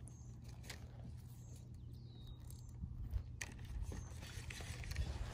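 Faint scattered clicks and scrapes over a steady low hum.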